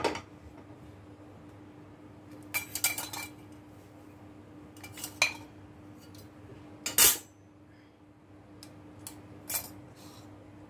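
Kitchen dishes and utensils clinking and clattering as they are handled and set down, a handful of sharp knocks with the loudest about seven seconds in, over a steady low hum.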